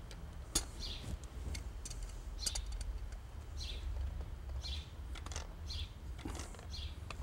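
Quiet sharp clicks of metal pliers gripping and turning a brass threaded fitting as it is tightened onto a frost-proof sillcock, over a low steady rumble. Birds chirp now and then in the background.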